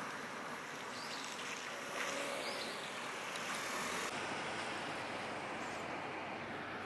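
Open-air ambience by a lake: a steady rush of wind and water noise. From about four seconds in, the faint low hum of distant motorboat engines sits under it.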